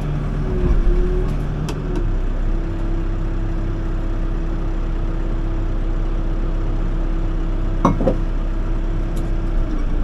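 Excavator's diesel engine running steadily, heard from inside the cab, with a steady whine joining from about two seconds in.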